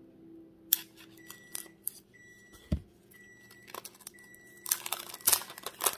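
Sharp plastic clicks and snaps as a sealed card-pack case is cut and pried open with a red-handled cutter, with one duller knock a bit under three seconds in. Near the end comes a dense crinkling and tearing of the 1976 Topps wax pack's wrapper as it is handled. Faint short high tones repeat about once a second in the middle.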